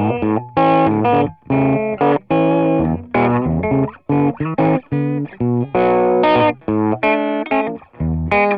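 Electric guitar played with the fingers through a StewMac Ghost Drive, a Klon-type overdrive pedal, on a low drive setting with both pickups on: lightly distorted chords and short phrases with brief gaps between them.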